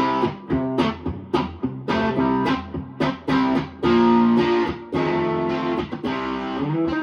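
PRS electric guitar with its new P90-style pickups, played through an amp in plucked chords and short riffs with sharp attacks and ringing notes. The tone is one the player hears as right in the middle of a Strat and a P90.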